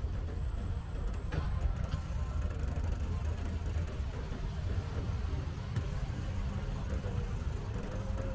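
Steady low rumble heard while riding a bicycle outdoors, with a few light clicks.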